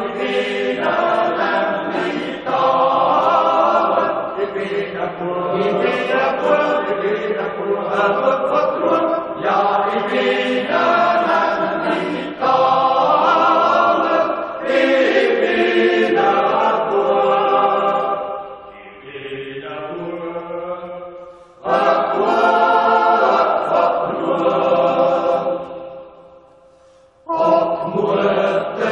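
Choral music: a choir singing slow, sustained chords, breaking off briefly about two-thirds of the way through and again shortly before the end.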